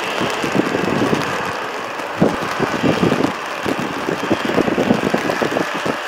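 Boeing 747-400 jet engines at low taxi thrust, a steady hiss, with irregular low rumbles from storm wind buffeting the microphone.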